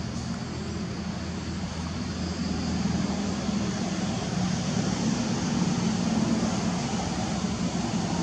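Steady low drone of a distant engine, growing a little louder about three seconds in.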